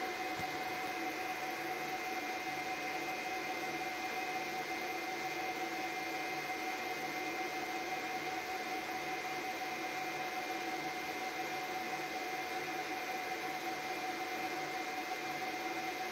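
Steady hiss with a constant high whine and a faint low hum that comes and goes, with no distinct events.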